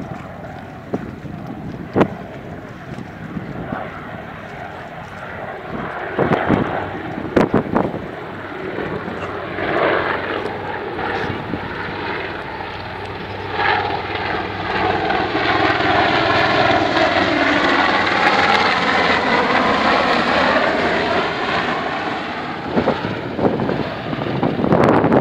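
HM Coastguard search-and-rescue helicopter flying low over the water, its rotor and engine noise building from about ten seconds in, loudest as it passes and easing slightly near the end.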